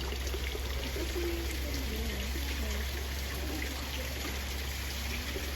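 Steady trickle of running water in a lily pond, over a low steady hum, with faint voices in the background.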